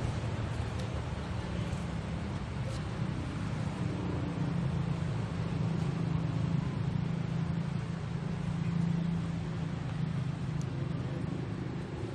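Steady low rumble of a motor vehicle or road traffic, holding at about the same level throughout and swelling slightly around the middle.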